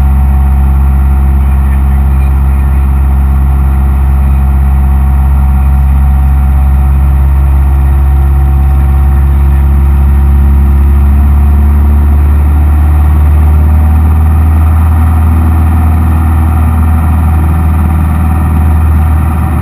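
Cessna 172M's four-cylinder Lycoming O-320 engine and propeller running loud and steady, heard from inside the cabin, its note wavering a little in the second half.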